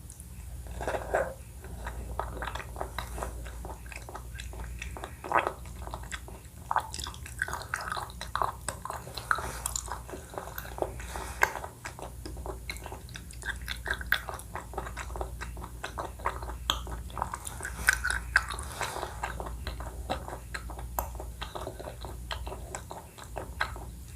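Close-miked chewing of a Thai coconut-milk dessert: a dense, irregular run of small wet clicks, smacks and crunches, with a faint steady hum underneath.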